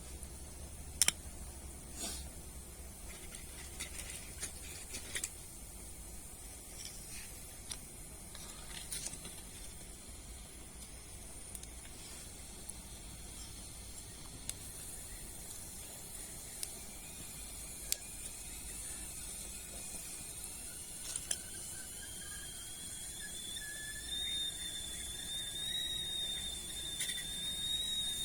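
Wood gas stove burning with a steady hiss and scattered sharp crackles from the wood fire. About two-thirds of the way in, a thin whistling tone rises and then holds high as the water heating on the stove nears the boil.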